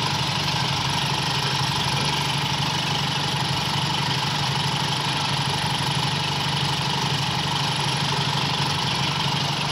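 Toyota Kijang Super's four-cylinder engine idling steadily and fairly smoothly while still warming up, its idle tuned by setting the carburettor's idle mixture screw and the ignition breaker points.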